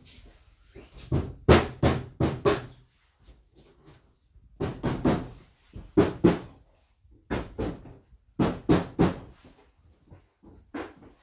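A mallet knocking the parts of a solid pine wardrobe together, in several quick runs of sharp wooden knocks with pauses between them.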